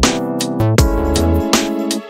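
Background electronic music: synthesizer notes over a steady drum-machine beat.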